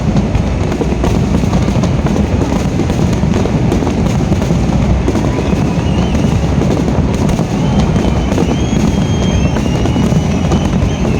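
Fireworks bursting one after another over loud music, a dense run of bangs over a continuous low rumble. High gliding whistles join in from about five seconds in.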